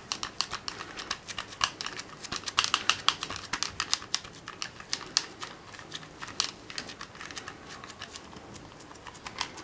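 Minced meat being pressed flat into a flexible plastic container by latex-gloved hands to mould a burger patty: a steady run of quick, irregular clicks and crackles from the plastic and glove.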